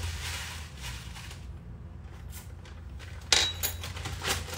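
Kitchen handling sounds: one sharp knock about three seconds in, with a short ring, followed by a few lighter clicks, over a low steady hum.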